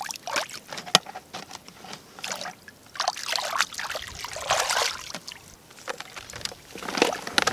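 Shallow muddy water splashing and trickling in irregular bursts, stirred by hands around plastic-cup fish traps.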